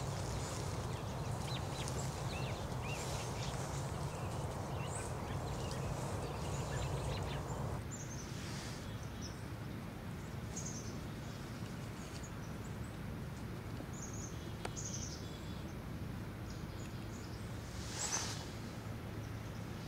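Outdoor ambience of small birds chirping in short high notes over a steady low rumble. The background changes abruptly about eight seconds in, and a single brief, louder sound comes near the end.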